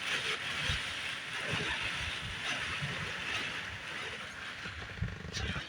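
Steady rain falling, a continuous hiss, with irregular low buffeting of wind on the microphone.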